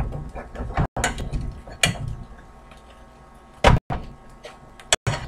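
Kitchen clatter: a small frying pan shifted on an electric coil burner and a fork set down. A few separate sharp knocks and scrapes, the loudest about three and a half seconds in.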